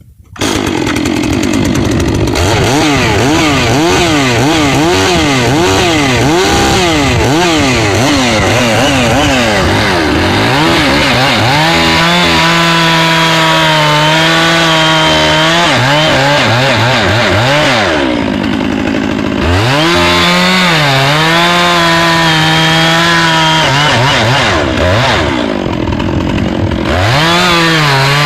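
Gas chainsaw with a 24-inch full-chisel chain cutting hard, dry oak. It starts about half a second in and revs with a wavering pitch, then settles into a steadier, lower note under load, easing off briefly twice before bearing down again.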